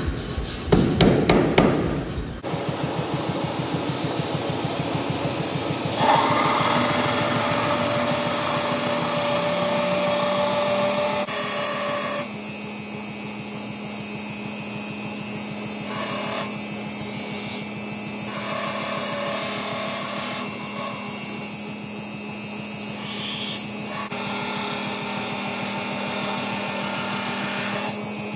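A power hammer striking a hot steel billet with rapid blows for about the first two seconds, then a belt grinder running with a steady hum while a forged steel knife blade is pressed against the belt, the grinding coming and going.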